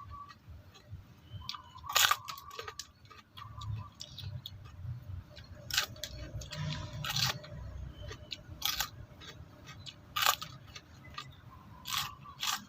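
Raw bitter gourd being bitten and chewed, a sharp crisp crunch every one to two seconds over wet chewing.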